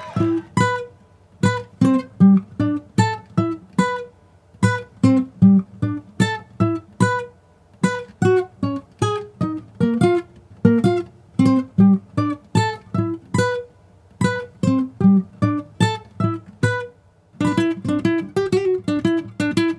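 Background music: an acoustic guitar picking a steady melody of short plucked notes. It pauses briefly near the end, then comes back fuller.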